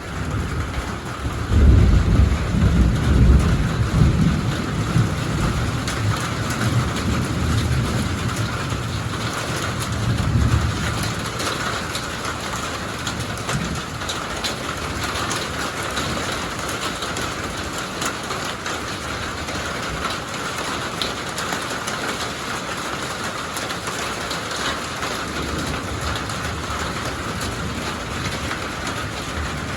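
Thunder rumbling over steady rain. The deep roll builds about a second and a half in, is loudest over the next few seconds and dies away by about eleven seconds, leaving the steady patter of rain.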